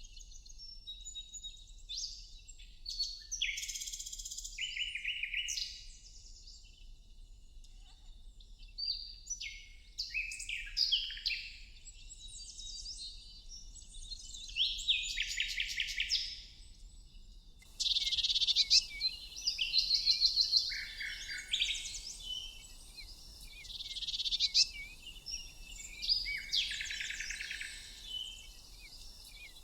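Several birds chirping and singing in short, overlapping trills and rapid repeated chirps. A faint steady high tone runs underneath, and a soft background hiss comes up a little past halfway.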